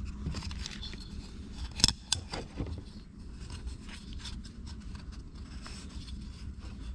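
Hands working a plastic oil filter housing cap, with small clicks and rubbing as a new oiled O-ring is fitted onto it. One sharp click comes just before two seconds in.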